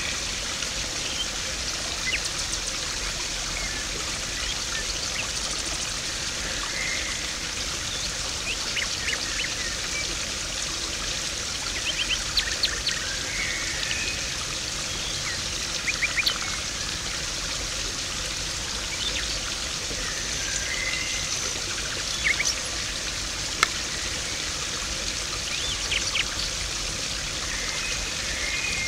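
Water in a garden pond rushing and splashing steadily, with small birds twittering over it in short scattered chirps and an occasional sharp splash or click.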